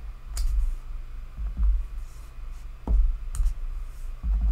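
Rubber stamp on a clear acrylic block being inked on an ink pad and pressed onto card stock on a craft mat: a few dull knocks against the table, with two sharp clicks.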